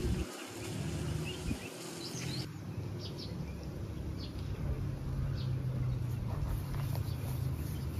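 Outdoor ambience: a steady low hum with faint, scattered bird chirps.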